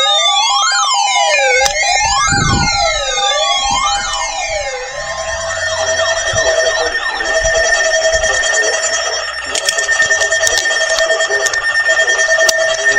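Several emergency vehicle sirens sounding at once, a wail rising and falling about once every one and a half seconds with other falling and steady tones over it. About five seconds in, the sound changes to a steadier siren tone that cuts in and out, with scattered clicks.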